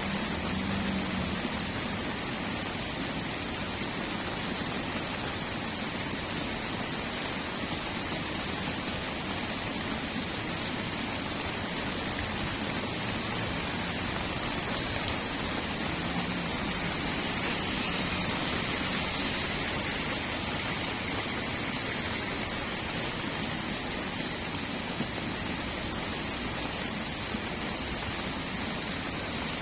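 Steady rain falling on a street, an even hiss that swells slightly about two-thirds of the way through. A low hum fades out about a second in.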